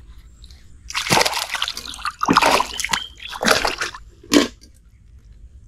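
A hooked snakehead splashing and thrashing at the water surface as it is hauled in on a longline: four splashes between about one and four and a half seconds in, the last one short.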